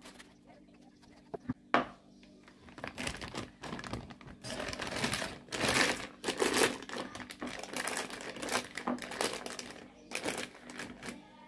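Thin green plastic piping bag crinkling and crackling as hands open it out and shape it, loudest around the middle. A few sharp clicks come just before the crinkling starts.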